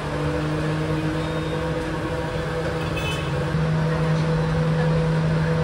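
Street traffic outside an open-fronted café: a steady, low engine hum that grows slightly louder about three and a half seconds in.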